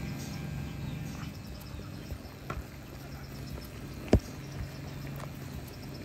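Low steady electrical hum from a microwave-transformer-driven induction coil, dropping out for a couple of seconds. About four seconds in there is one sharp metal clank as the frying pan is set back down on the coil.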